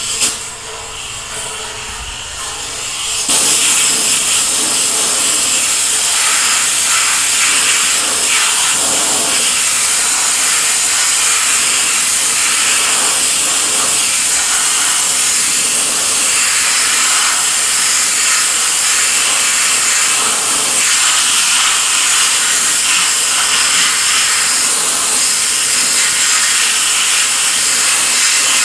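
Sandblaster nozzle hissing steadily as fine Black Diamond abrasive blasts the last rust off a 1936 Ford truck hood's steel panel. The blast opens up to full, louder and even, about three seconds in.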